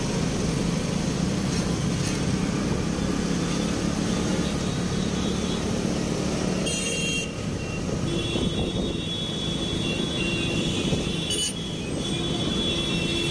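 A motorcycle engine running as it rides slowly through city traffic, with road and traffic noise around it. In the second half a steady high-pitched tone sounds twice, each time for a few seconds.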